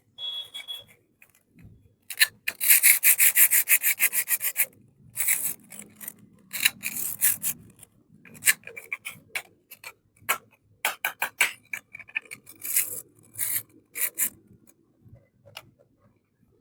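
Hands rubbing and scraping small plastic toy-kitchen pieces and packaging: a quick run of scratchy strokes about two seconds in, then scattered scrapes and light clicks.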